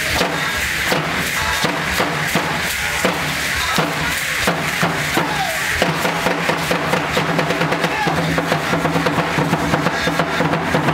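Danza Mexica dance music: a steady drum beat with the dancers' ankle rattles shaking in time to their stamping steps, the rattling growing denser about halfway through.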